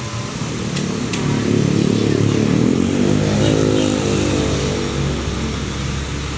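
Intercity coach bus driving slowly past close by. Its engine grows louder to a peak in the middle, then its note falls in pitch as the bus moves off.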